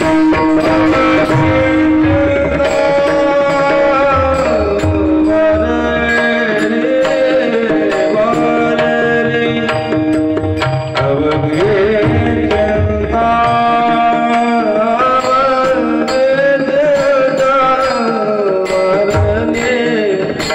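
Marathi kirtan tune: a singer's voice carries a gliding, ornamented melody over long held notes, with hand-drum strokes keeping the rhythm.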